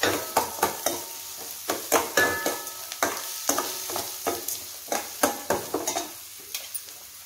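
Metal spoon scraping and knocking against a stainless steel kadai while onions, chillies and curry leaves are stirred in hot oil for a tempering, with a light sizzle underneath. The scrapes come about two to three times a second, some with a short metallic ring, and grow softer near the end.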